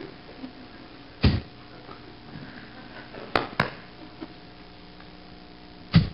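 A few short breath or sniff noises close on a handheld microphone, one about a second in and one at the end, with two quick clicks a little past halfway, over a faint steady background.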